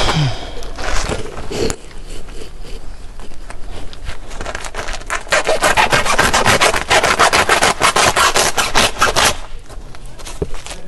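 A fast, even run of rasping strokes, about seven a second, starting about four seconds in and stopping abruptly about five seconds later, with scattered rustling before it.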